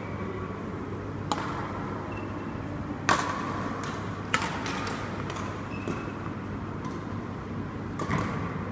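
Badminton rackets striking the shuttlecock during a rally: about four sharp, irregularly spaced hits, over a steady low hum.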